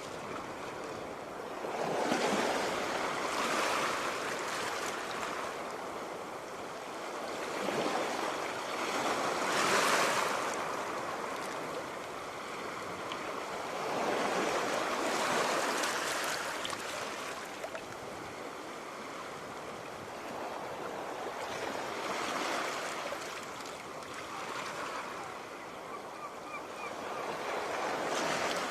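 Sea waves breaking and washing on the shore, each surge swelling up and falling away every few seconds, the largest about ten seconds in.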